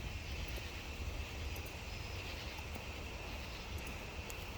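Crickets chirring steadily at night over a low, even rumble.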